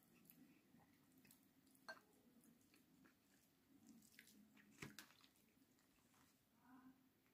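Very faint eating sounds: fingers working through rice and stewed chicken, with chewing and small wet clicks, the sharpest about two and five seconds in.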